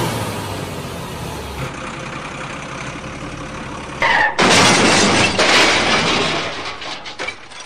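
Muddy water splashing as toy dump trucks plough through puddles. A steady splashing fades over the first few seconds, then a sudden, louder splash comes about four seconds in as a toy dump truck tips into a water-filled pit, and it dies away near the end.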